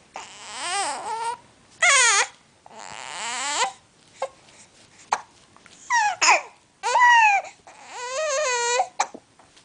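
Baby crying in a string of high, wavering cries with short gaps between them, frightened by a scare meant to stop the hiccups.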